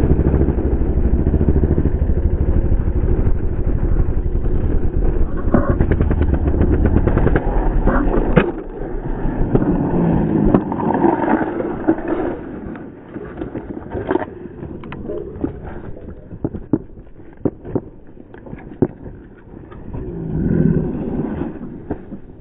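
Yamaha WR450F single-cylinder four-stroke dirt bike engine running hard with heavy wind rush on a helmet microphone, then about eight seconds in a loud crash as bike and rider hit the pavement. The engine sound drops away and a string of scattered scrapes, knocks and clattering follows as they slide and tumble across the asphalt.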